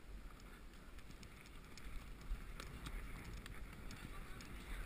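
Muffled rumble of wind and movement on a rider's GoPro microphone as the horse moves over grass, with faint scattered knocks and clicks from the hooves and tack that grow a little louder about two seconds in.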